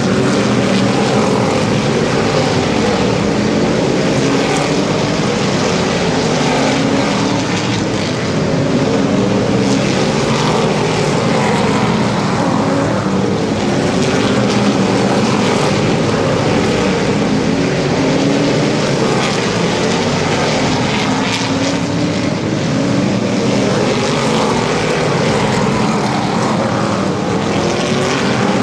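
Modified stock cars' V8 engines at racing speed: several engines overlapping in a loud, continuous drone, their pitches wavering as the cars come round.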